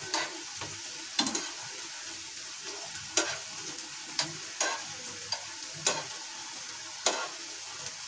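Jalebi batter spirals deep-frying in hot oil in a kadhai, a steady sizzle. Metal tongs and a spatula click against the pan about once a second as the jalebis are turned over.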